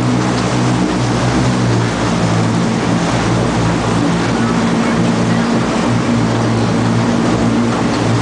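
Amphibious duck tour vehicle under way in the water, its engine running with a steady drone over water rushing and splashing along the hull.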